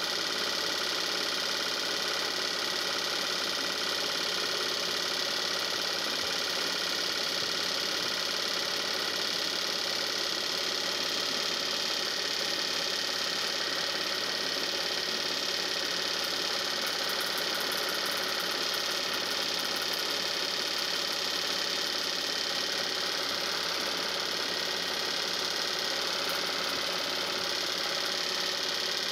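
Steady mechanical whirring and clatter of a film projector running, heard while old 8 mm home-movie film is played back for digitising.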